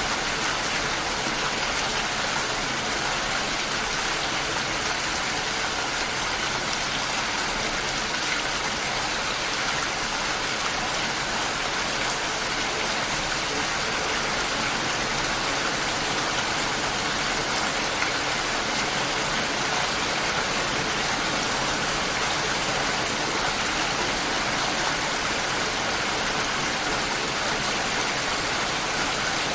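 Steady light rain falling, an even hiss of drops with no thunder.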